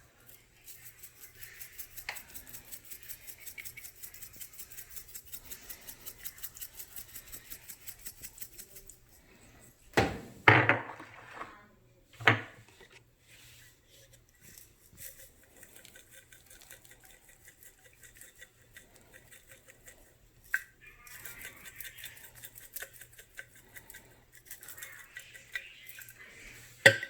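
Seasoning shaker shaken over a skillet of raw eggs, rattling in a fast even rhythm of about five shakes a second for some eight seconds. Then come a few sharp knocks, and later more light, uneven shaking and clinks.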